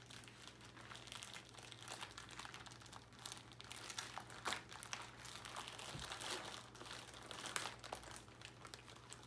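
Packaging of a craft kit being handled and opened: irregular crinkling and rustling with short crackles, a few louder ones around the middle and near the end.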